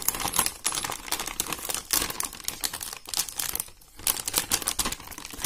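Thin plastic packaging bag crinkling and rustling as it is handled, a dense run of small irregular crackles.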